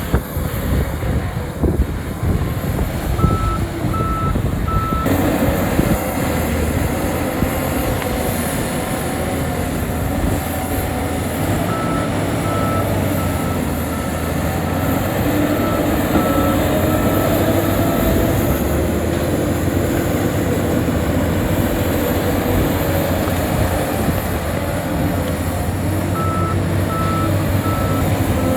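Diesel engine of heavy earth-moving machinery running steadily, with a reversing alarm beeping at a steady pace in three spells, near the start, in the middle and near the end.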